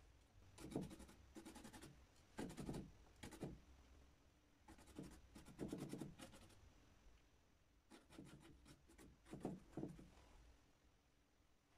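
Paintbrush scrubbing oil paint onto a painting panel: a series of short, quiet scratchy strokes at irregular intervals, with a pause in the middle.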